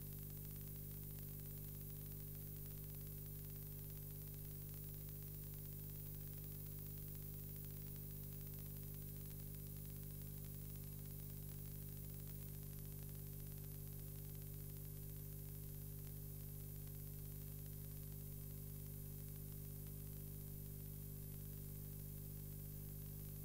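Steady electrical mains hum with constant hiss and no other sound, unchanging throughout: the noise floor of a transferred video recording rather than any live sound of the scene.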